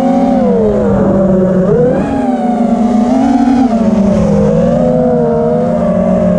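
FPV quadcopter's brushless motors and propellers whining loudly, heard from the onboard camera, the pitch rising and falling every second or so as the throttle changes.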